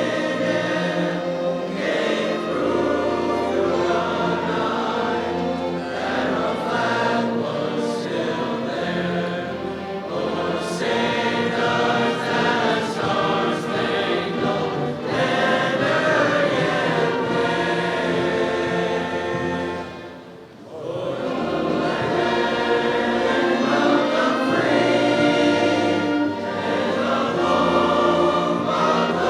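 A choir singing sustained phrases, with a short break about twenty seconds in.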